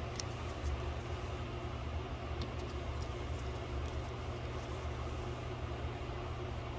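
Steady low rumble in the background, with a few faint light clicks.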